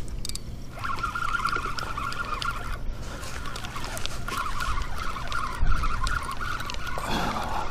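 Spinning reel being cranked steadily, its gears whirring, as a hooked snook is reeled in; the whirring pauses briefly about three seconds in.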